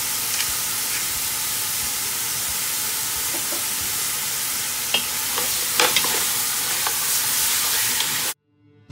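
Beef shanks, onion and pepper sizzling steadily as they sear in oil in a deep pot, with a few light knocks and scrapes of a wooden spatula against the pot about five to six seconds in. The sizzle cuts off suddenly just before the end.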